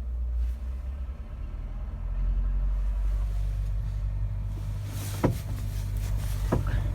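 A vehicle engine running steadily, getting louder about two seconds in, with two sharp knocks near the end, the second followed by a brief squeak.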